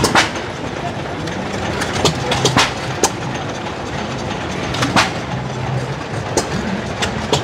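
Antique John Deere hit-and-miss stationary gas engines running, their exhaust firing in sharp, irregularly spaced pops over a steady background din.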